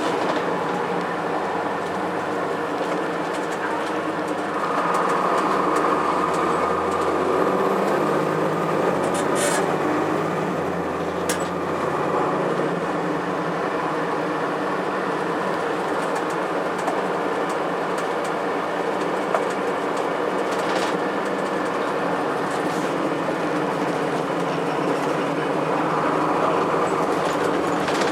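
2002 Blue Bird CS school bus under way, heard from inside, its Cummins ISC six-cylinder diesel and Allison transmission running steadily. A higher whine comes in from about five to twelve seconds in, and again near the end.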